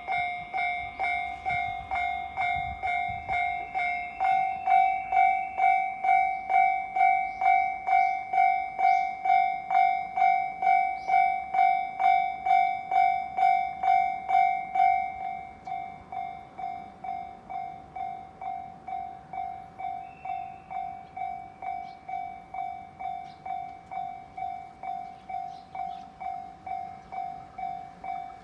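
Japanese railway level-crossing warning bell ringing in an even, rapid ding-ding rhythm, about two strikes a second. It drops noticeably in level about halfway through and keeps ringing.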